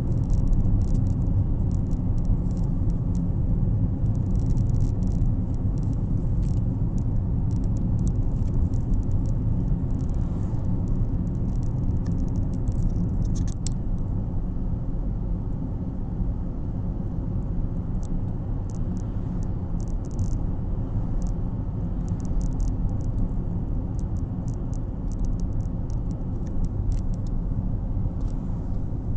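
Steady low rumble of tyre and engine noise inside a car's cabin while it cruises at a constant speed. Faint light clicks or rattles come and go throughout.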